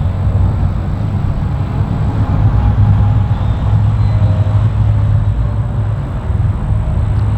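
Outboard engines of a 46-foot Invincible boat idling at the dock, a steady low rumble.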